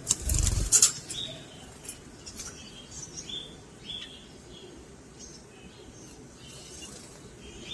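Lovebirds chirping, short high calls repeated every half second or so. A loud thump with clattering comes in the first second.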